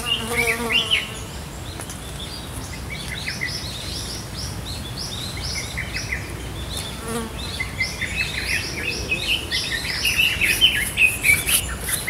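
Forest birds chirping, with many quick repeated short notes that grow busier toward the end, over a steady high insect buzz. A lower call with several overtones sounds in the first second.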